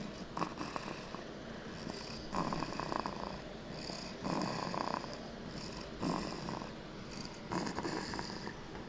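A young child snoring in sleep, a rasping snore on each breath, about five in a row at a steady rhythm of one every one and a half to two seconds.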